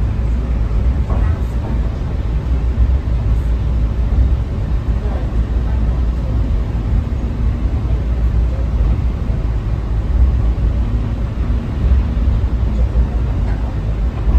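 Steady low rumble and hum of the cable-hauled Terminal Link people-mover train running along its guideway, heard from inside the car, with faint voices in the background.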